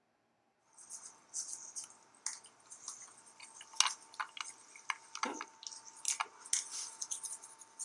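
A toothbrush scrubbing a wolf pup's teeth: quick, irregular scratchy bristle strokes and clicks against the teeth, starting about a second in after silence.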